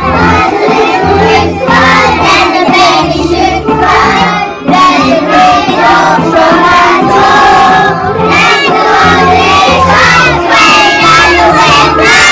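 A group of young children singing a song together to a steady instrumental accompaniment, with guitar heard just before.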